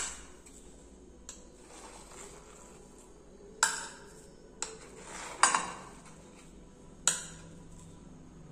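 Metal spoon clinking against a stainless-steel idli steamer plate and a ceramic plate as steamed cakes are scooped out. There are six sharp clinks at uneven intervals, each ringing briefly; the loudest are about halfway through and near the end.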